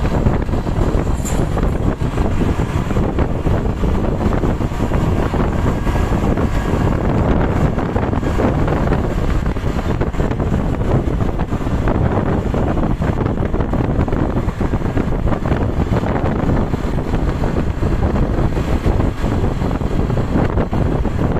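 Heavy wind noise buffeting the microphone over a steady low rumble of road traffic. No horn sounds.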